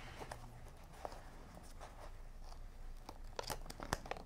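Heat tape being picked loose and peeled off a freshly heat-pressed cap transfer by fingertips: faint crinkling with scattered small ticks, a few sharper ones near the end.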